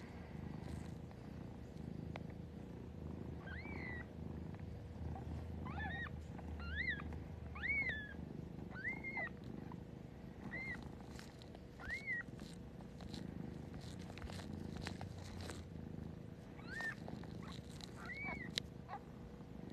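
A Siberian mother cat purring steadily while her newborn kittens give about nine short, high squeaks that rise and fall, clustered in the middle and again near the end.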